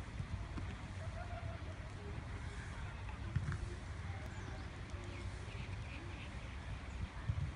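Outdoor ambience of a low steady rumble with faint bird chirps, a few of them about two thirds of the way in.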